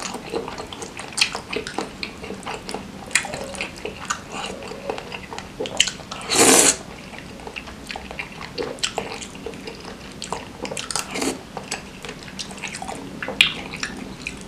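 Close-miked wet chewing and lip smacking of a person eating spicy seblak noodles in broth, many small clicks and squelches, with one louder half-second sucking sound about six seconds in.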